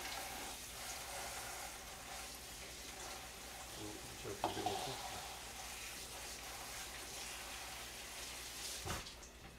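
Tap water running into a kitchen sink as spinach is rinsed under it, a steady hiss with a few handling knocks, shutting off near the end.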